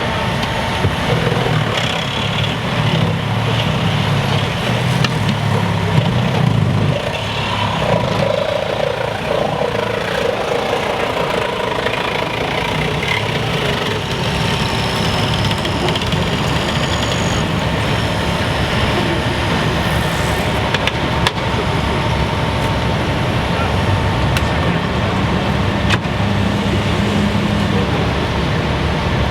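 Emergency vehicles' engines running steadily at an accident scene, with voices faintly mixed in.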